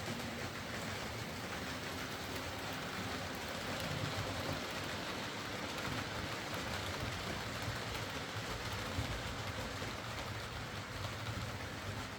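Hornby OO gauge Merchant Navy class model locomotive running steadily on its track, a small DC motor humming under a steady rushing noise from the mechanism. It is running freely again after its seized, solidified lubricant was cleaned out.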